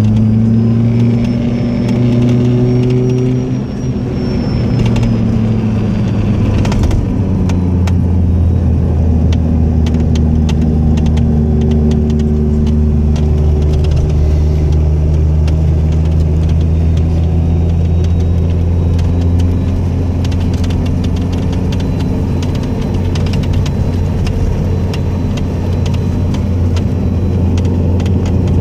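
Lada Priora's four-cylinder petrol engine running, its speed dropping about four seconds in, then steady, with a nasty knock of rapid clicks from the engine bay whose cause is unknown.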